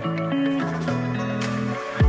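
Instrumental background music, held notes that change pitch a few times.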